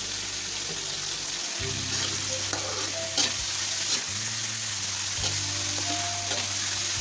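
Chicken pieces sizzling in hot oil in a metal wok while being stirred with a metal spatula. The spatula scrapes and knocks against the wok a few times, sharpest about three seconds in.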